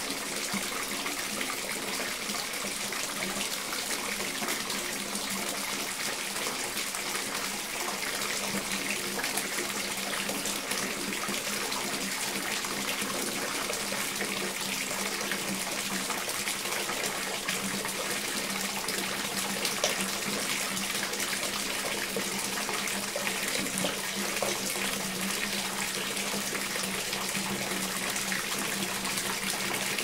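Water running from a tap into a bathtub as it fills: a steady, unbroken rush of water pouring and splashing into the tub.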